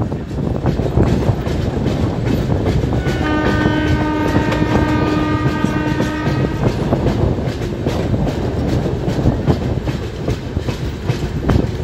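Indian Railways passenger train running, heard from an open coach door or window, its wheels clattering over rail joints and points. About three seconds in, a train horn sounds one steady blast lasting about three and a half seconds.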